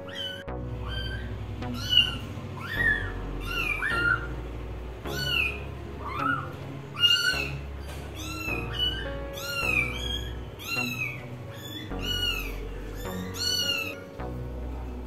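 Kittens mewing over and over, short high calls about one and a half a second, each rising and falling in pitch, over background music with a steady low bass.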